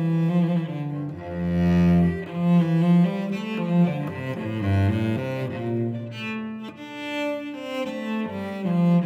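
Cello bowed solo, playing a melodic line of held notes that change pitch every second or so, dropping to deeper notes a couple of times.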